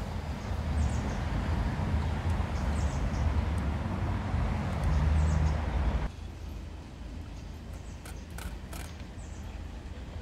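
Low rumble of a passing road vehicle, building slightly and cutting off suddenly about six seconds in. Afterwards it is quieter, with faint clicks of a cat eating dry kibble from a plastic tub and faint bird chirps.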